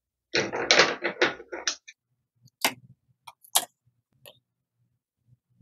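Cloth rustling as a small sewn fabric piece is handled close to the microphone, then two sharp clicks about a second apart from steel scissors knocking against the sewing machine's metal bed.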